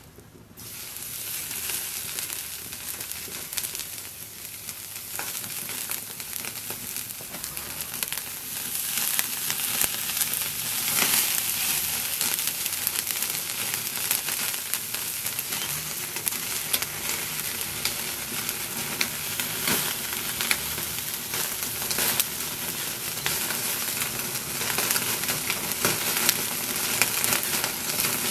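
Oil-marinated chicken pieces sizzling on a wire grill over a charcoal fire: a dense hiss with crackles and pops, getting louder as more pieces go on.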